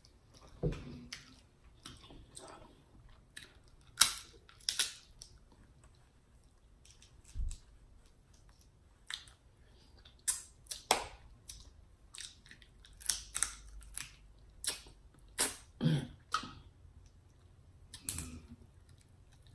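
Close-miked eating sounds: chewing and lip smacks, with irregular sharp cracks and snaps from snow crab legs being pulled apart by hand.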